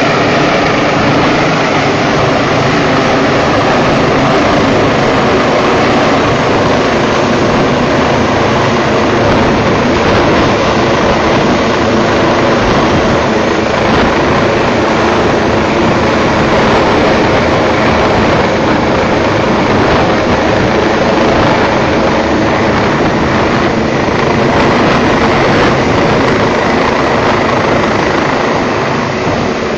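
Rescue helicopter hovering close overhead, its rotor and engines running loud and steady, with a few held engine tones under the rotor noise.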